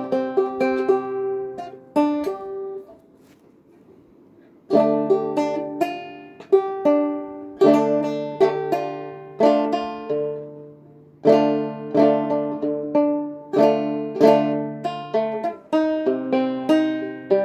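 Solo banjo picked in ringing notes and rolls. The playing trails off about two and a half seconds in, and after a quiet gap of about two seconds it starts again with a different tune.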